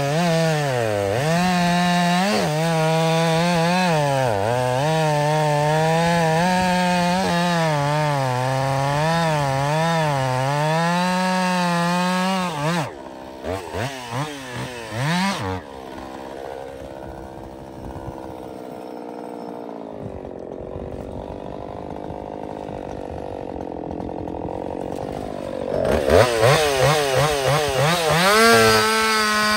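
Woods-ported Jonsered 2156 two-stroke chainsaw cutting through cherry wood at full throttle, its pitch dipping and recovering as the chain loads in the cut. About thirteen seconds in it gives several quick throttle blips, then drops to idle for about ten seconds. Near the end it revs back up and goes back into the cut.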